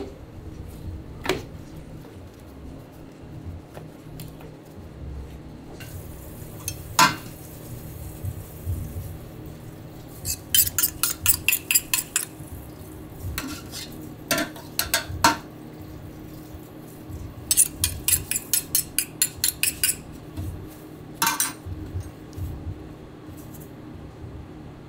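Metal spoons clinking against metal as pizza sauce is scooped and spread on a dough base: short runs of quick, light clinks, about five a second, with a few single louder clinks between them.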